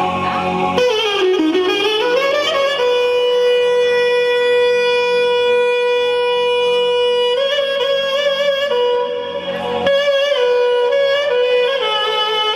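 Instrumental music: a lead melody instrument plays bending, ornamented phrases, then holds one long high note for about four seconds before returning to ornamented runs.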